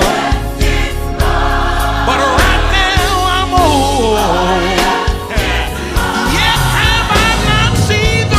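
Live gospel quartet music: a lead voice sings long, sliding runs over background vocal harmony and a full band with a steady bass line.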